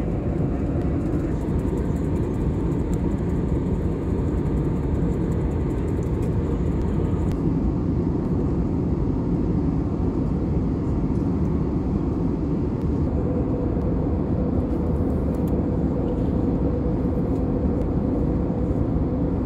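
Steady, deep cabin drone of an Airbus A320neo in flight: engine and airflow noise heard inside the passenger cabin.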